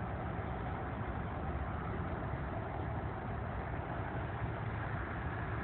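Steady, even roar of a Boeing 767's jet engines heard from far across the airfield, with a low rumble underneath.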